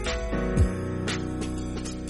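Background music with sustained notes and a steady beat, including a deep drum hit about half a second in.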